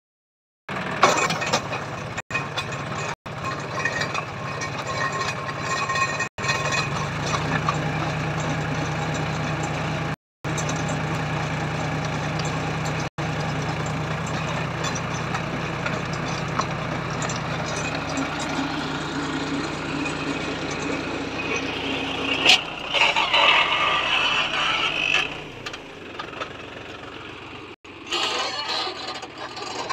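Tractor engine running steadily under load, driving a PTO-powered double auger pit digger that bores into the soil. The sound cuts off abruptly several times, grows louder and harsher about three-quarters of the way through, then quietens near the end.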